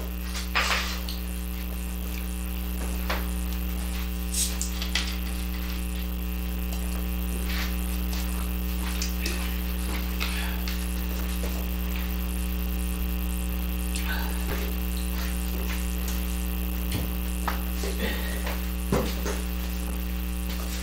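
Steady electrical mains hum, with a few faint knocks and rustles of handling scattered over it.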